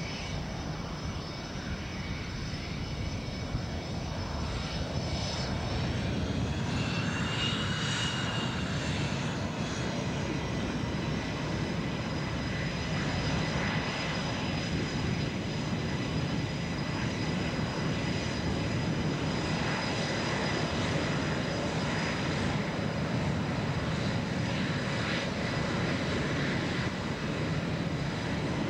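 Twin turbofan jet engines of F/A-18 Hornet and Super Hornet fighters running on the airfield: a steady rumble under a high-pitched turbine whine. About eight seconds in, the whine briefly rises and then falls in pitch.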